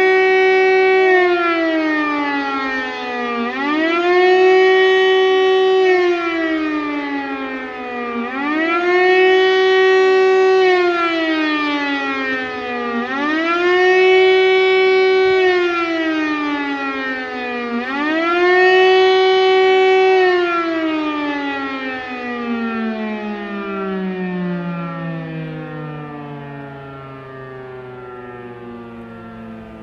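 Siemens-Schuckert Fm Si 40 high-tone electric air-raid siren sounding the rising and falling wail of the former German 'Fliegeralarm' signal, the warning of imminent air attack. The pitch swings up and down about every four to five seconds, five times. From about two-thirds of the way through it winds down, its pitch sliding steadily lower as it fades.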